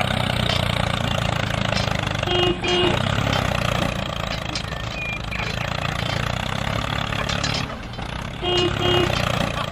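Tractor engine running steadily. A short double beep sounds twice, a few seconds in and again near the end.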